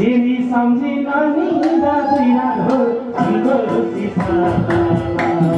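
Live Nepali dohori folk song: a voice singing through a PA over held accompanying tones and regular hand-drum strokes.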